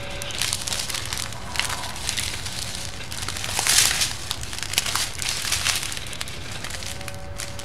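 Thin plastic packaging crinkling and crackling as a strip of small bagged diamond-painting drills is handled and folded, with a louder burst of crackling a little past halfway.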